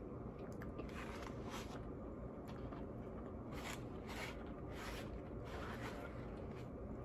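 Plastic knife sawing at food on a plate: a series of short, scratchy strokes, running from about a second in until near the end.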